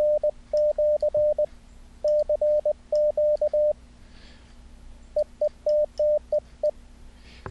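Morse code tone from the CWtype software keyer: a single pure tone keyed on and off into dits and dahs. Several quick groups come first, then a pause of about a second and a half, then a run of short dits.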